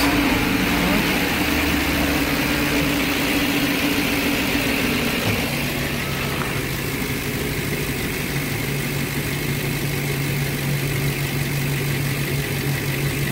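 Ford 5.4-litre V8 engine of a 2009 E350 van running just after an electronic throttle body relearn; its speed drops about five seconds in, then it holds a steady idle.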